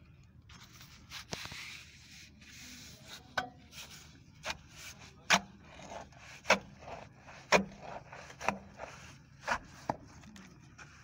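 Gloved hands rustling and scraping through packed wet leaves, then a length of pipe jabbed down into the leaves and roots clogging the manhole, giving sharp knocks about once a second from about three seconds in.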